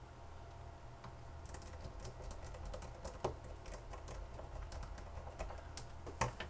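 Irregular run of small, light clicks and taps from hands at work, starting about a second and a half in, with a couple of sharper clicks, over a steady low hum.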